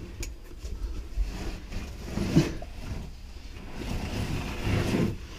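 Scraping and rustling of clothing and a gear bag against rock as a caver crawls through a tight squeeze, over a low rumble, with two short vocal sounds about two and a half and five seconds in.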